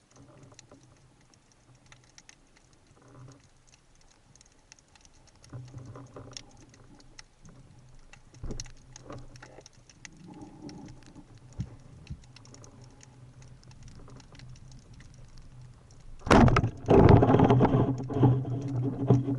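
Underwater ambience with scattered faint clicks and crackles over a low hum, then, about three seconds before the end, a sudden loud rush of churning, gurgling water.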